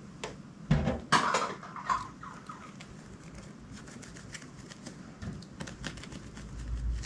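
Clear slime being squished and stretched by hand, making sticky pops and squelches, loudest in a short burst about a second in, then quieter scattered crackles.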